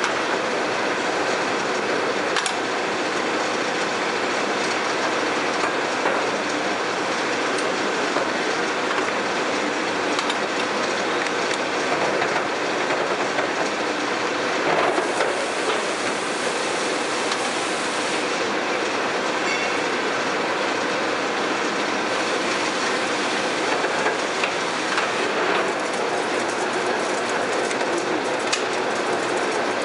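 Warner & Swasey 4A turret lathe running under power, a steady mechanical running noise with a faint steady whine. A few brief clicks and knocks come as the carriage levers are worked.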